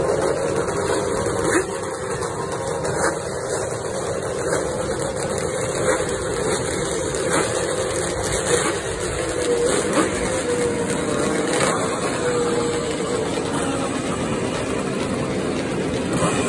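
Vintage two-stroke motorcycle engines running and idling, the engine note rising and falling a little.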